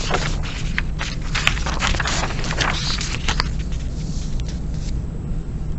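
Paper rustling and scraping in short strokes for about three and a half seconds as a worksheet is shifted and handled, then only a steady low hum.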